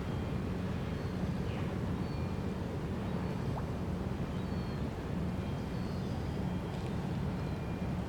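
Steady low rumble of a departing cruise ship's engines, with a few faint short bird chirps. The ship's horn is not sounding.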